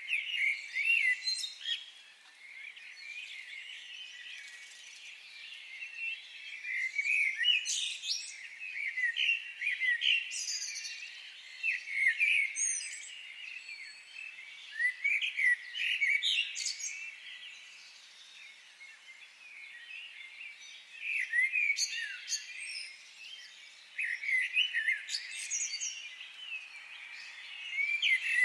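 Songbirds chirping and twittering, many short high calls coming in clusters a few seconds long with brief quieter gaps between.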